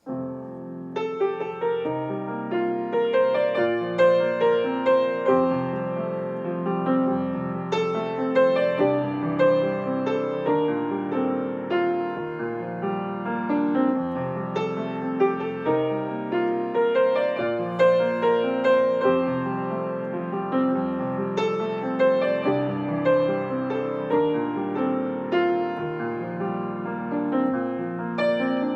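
Solo piano music, chords and melody notes struck with a steady pulse, starting straight after a moment of silence.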